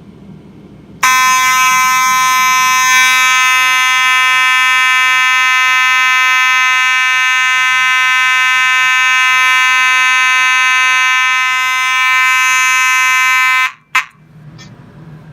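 Simplex 2901-9838 mechanical fire alarm horn, a rebranded Faraday 6120, sounding on continuous: a really loud, steady buzzing tone that starts about a second in and holds unchanged for about twelve seconds. It cuts off suddenly near the end, with one short blip right after.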